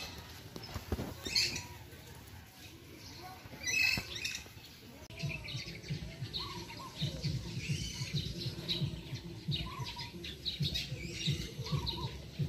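Birds chirping in short, repeated calls, busier from about five seconds in, over a low rumbling of handling noise.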